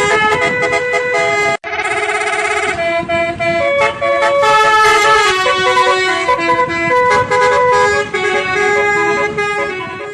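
Indonesian "telolet" bus horn playing a melody of held tones that step from pitch to pitch, with a brief break about a second and a half in followed by a short warbling passage.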